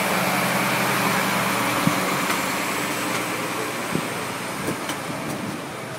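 Iveco heavy recovery truck's diesel engine running as it tows the wrecked race truck past, growing fainter, with a few sharp knocks.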